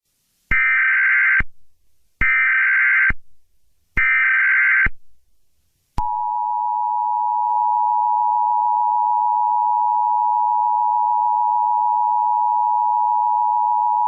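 Emergency Alert System alert opening: three short bursts of SAME header data screech, each about a second long and evenly spaced, then about six seconds in the steady two-tone EAS attention signal, held for about eight seconds.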